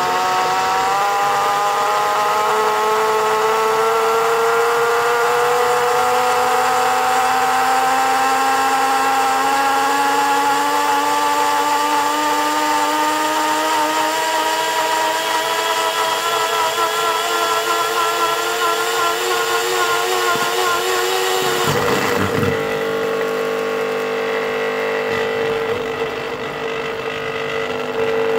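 Breville personal blender's motor running loud under a steadily rising overvoltage, its whine climbing in pitch as the motor speeds up with the supply pushed from about 230 V to over 400 V. About twenty-two seconds in the whine breaks abruptly into a rougher, steady tone at a fixed pitch.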